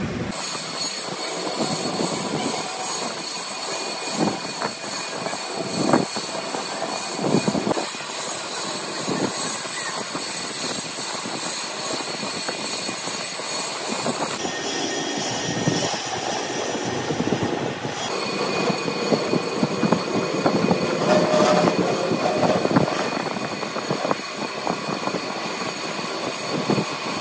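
Steady workshop machinery noise with a high-pitched whine, and occasional short metal knocks and clinks from steel camshaft pieces being handled at a lathe.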